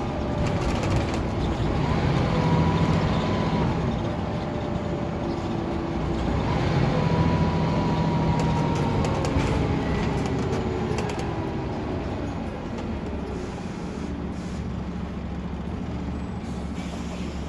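Interior sound of a Scania N94UD double-decker bus under way: its 9-litre diesel and ZF automatic gearbox pull hard through two surges of acceleration with a thin whine rising and falling, then ease off near the end, with light rattles from the body.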